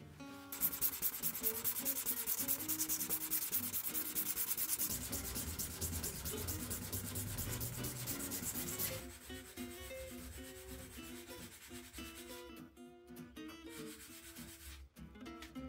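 Hand sanding of a steel knife blade with abrasive paper on a wooden block, in quick, even back-and-forth strokes, several a second. The sanding stops about nine seconds in, and background music carries on.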